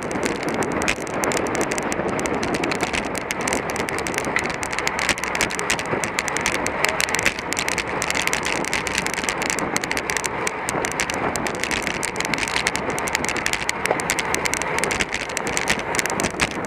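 Steady rush of wind on the microphone together with a road racing bicycle's tyres and drivetrain running at speed.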